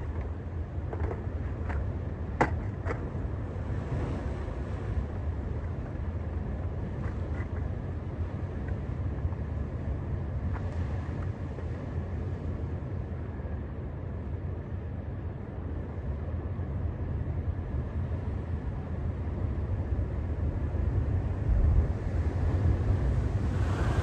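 Ocean waves washing and breaking, with wind rumbling on the microphone. A few short clicks sound about two seconds in, and the surf swells louder near the end as a bigger wave breaks.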